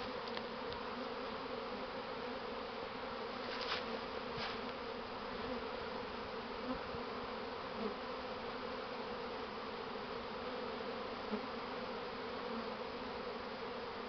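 A swarm of honey bees buzzing with a steady, even hum as the cluster walks into a new hive box.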